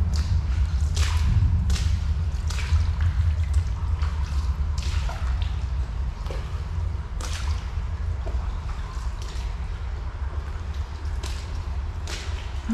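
Footsteps splashing through shallow water on a tunnel floor, in uneven steps about a second apart, over a steady low rumble.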